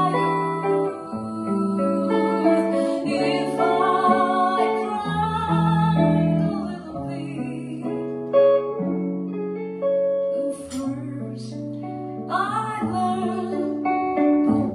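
Slow jazz ballad on grand piano and archtop guitar, sustained chords changing every second or so, with a woman's voice singing over it near the start and again near the end.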